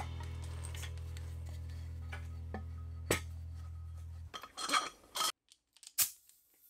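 Sharp metallic clicks and clinks from handling a metal pressure pot and its air fittings: the lid being set and its knobs clamped, then a crisp snap near the end as an air-hose quick-connect coupler is pushed together.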